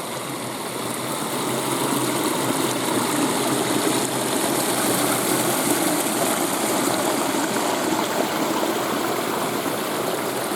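Stream water running steadily down a rocky channel, a continuous rush that grows a little louder over the first couple of seconds.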